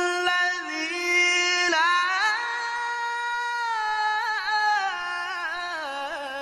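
A male qari reciting the Qur'an in the melodic tilawah style, drawing out one long melismatic note with wavering ornaments. The pitch steps up about two seconds in and slides down near the end.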